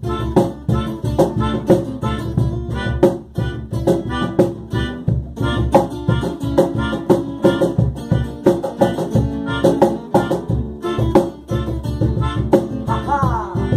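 Reggae band playing an instrumental passage, drums and bass keeping a steady beat under guitar.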